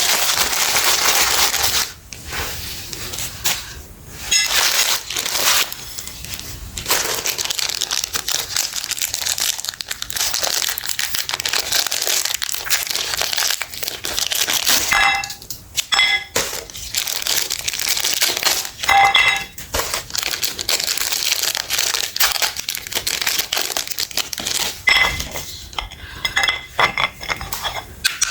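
Meat grinder crunching and crushing something hard and brittle, a dense crackle that runs on with short breaks. Short metallic clinks come in a few times, mostly in the second half.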